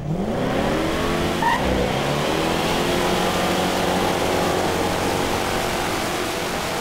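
1969 Shelby GT500's big-block V8 revving up hard at the start and then held at high revs while the rear tyres spin in a burnout, with a steady hiss of spinning, smoking tyres.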